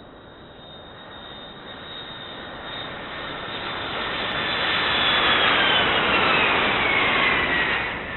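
Jet airliner passing overhead on its landing approach: a rising rush of engine noise with a high turbine whine that slides down in pitch as it passes, loudest about two-thirds of the way through, then fading near the end.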